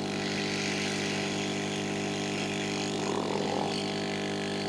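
Hot air rework station blowing onto a circuit board chip: a steady hum from its blower with an even hiss of air.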